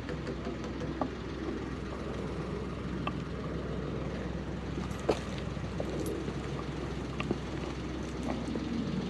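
Steady low rumble of outdoor background noise, with a few short sharp clicks and taps scattered through it.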